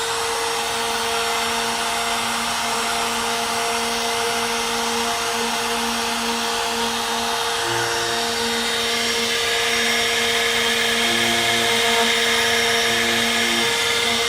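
Compact electric wood router (trim router) running continuously at high speed: a steady high motor whine over a rushing hiss.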